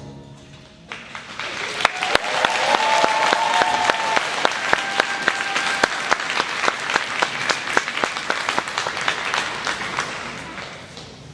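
The band's final held chord dies away in the first second, then the audience breaks into applause that swells, holds, and tapers off near the end.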